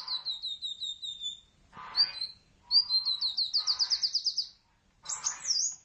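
Sunbird singing: fast trills of short, high, down-slurred chirps in phrases of one to two seconds, with brief pauses between them and a few sharp separate notes near the end.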